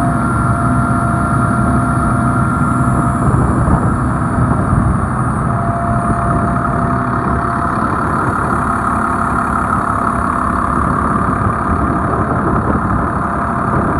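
The fire truck's 8.3-litre Cummins diesel engine idling steadily, with a higher whine over the rumble that comes and goes.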